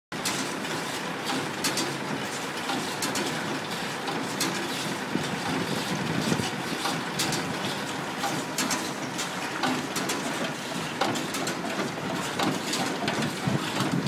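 Massey Ferguson small square baler running, driven through its PTO shaft, with a steady mechanical din and frequent sharp clanks from its moving parts.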